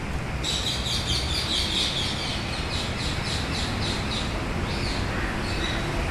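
Birds chirping in a quick run of short calls, starting about half a second in and stopping near five seconds, over a steady low rumble of city traffic.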